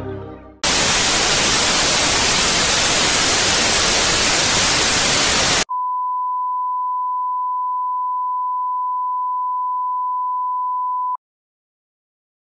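Loud hiss of static, like an untuned television, for about five seconds, then a steady test-tone beep of the kind played with colour bars, which cuts off abruptly.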